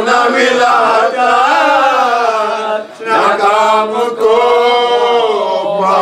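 A male voice chanting a Shia majlis lament in long, wavering melodic lines, with a brief breath pause about three seconds in.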